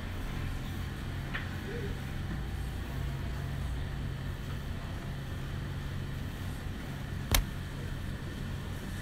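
Steady low boat-engine drone over wind and water noise, with one sharp knock about seven seconds in.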